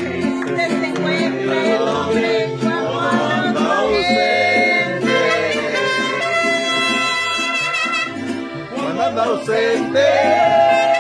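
A live band playing a Latin song led by trumpets, with voices singing along over a steady bass line.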